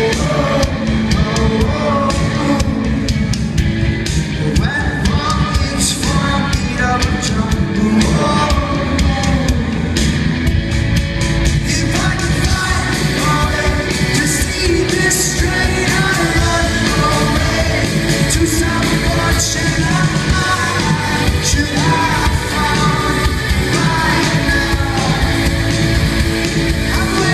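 Rock band playing live, with singing over drums, bass and guitars.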